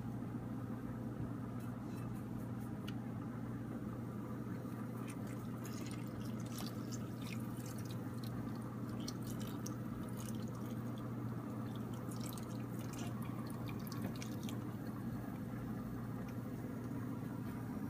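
Tamarind water poured from a plastic container into an aluminium pot of chopped vegetables, with faint drips and small splashes, over a steady low hum.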